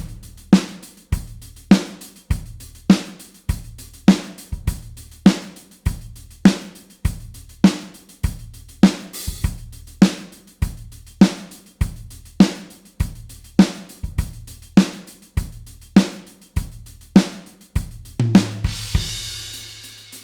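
Rock drum kit playing a steady beat, with kick drum, snare and hi-hat strokes a little under two a second. Near the end it stops on a cymbal crash that rings out.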